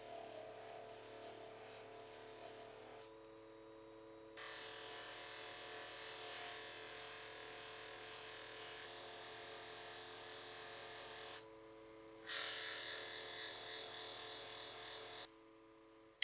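Small electric polishing motor running steadily, with a louder rubbing noise that comes and goes in stretches as the piece is pressed against the buffing wheel.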